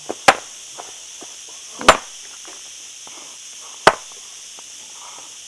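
A hand digging tool striking stony ground three times, about two seconds apart, with small knocks of stones and soil between the blows.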